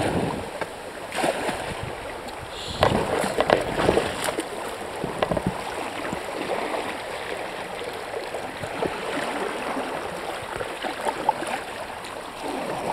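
Canoe paddle strokes splashing irregularly in river water, over the steady rush of the flowing river.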